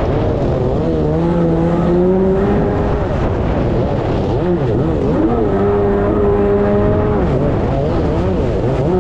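Two-stroke stand-up jet ski engine running hard, its pitch rising and falling as the throttle is worked, over a rushing noise of water and wind.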